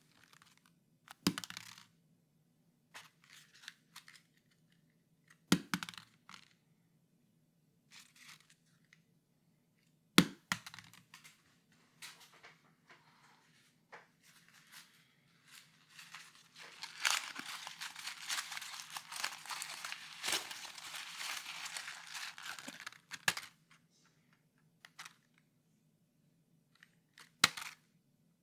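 A blank sheet of paper being handled close to the microphone: sharp crisp crackles every few seconds, then a sustained stretch of tearing and crinkling lasting about seven seconds in the second half.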